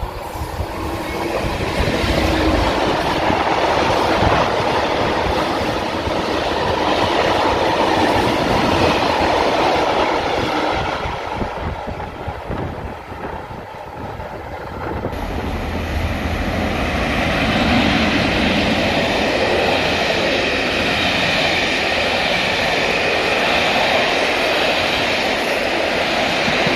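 A DB Class 66 diesel freight locomotive, with its two-stroke EMD V12 engine, passes at speed, followed by its rake of tank wagons rolling by and receding. About halfway through, the sound cuts to a train of passenger coaches rolling past, their wheels running on the rails.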